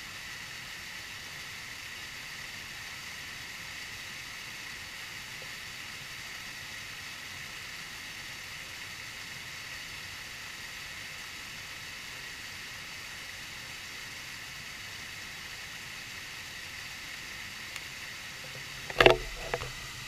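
Small cascading garden waterfall: water falling steadily over rocks into a pool, an even hiss. About a second before the end, a sudden loud knock and rustle.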